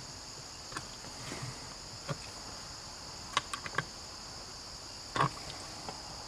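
A handful of short, sharp clicks and knocks of a screwdriver and metal parts being worked inside an old outboard remote control throttle box, the loudest about two and five seconds in. Under them runs a steady high chirring of crickets.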